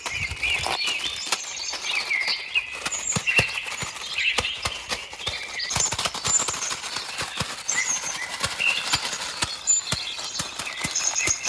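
Birds chirping, with many irregular sharp clicks and taps; no engine is heard.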